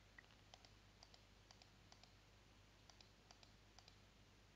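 Faint computer mouse clicks, repeated a few times a second and mostly in quick pairs, over a low steady hum.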